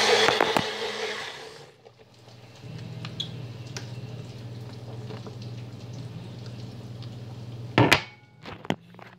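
Bullet blender running on apple, celery and parsley juice, winding down and stopping about two seconds in. After a short lull a steady low hum sets in, and near the end there is one loud clunk followed by a few lighter knocks.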